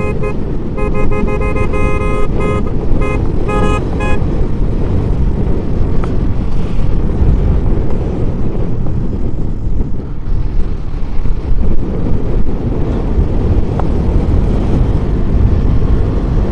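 A vehicle horn sounding a quick string of short beeps during the first four seconds, over the steady rush of wind and road noise from riding a motorcycle at speed, which carries on alone for the rest.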